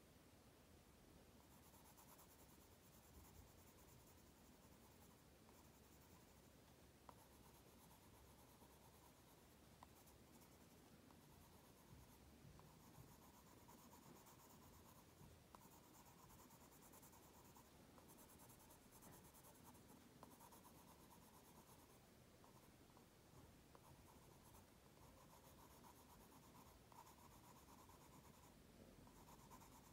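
Faint scratching of a colored pencil shading on an index card, in spells of quick strokes with short pauses between them.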